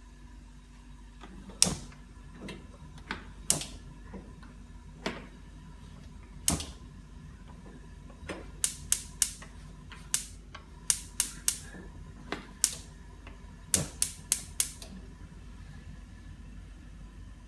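Spark igniter of a gas range clicking as the burners are lit one after another: sharp single clicks at first, then quick runs of three or four, stopping about 15 seconds in. A faint steady hum lies underneath.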